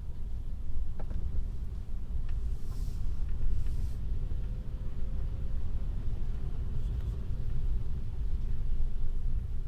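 Steady low road rumble inside a moving Tesla's cabin, its tyres running on a snowy road, with a few faint clicks.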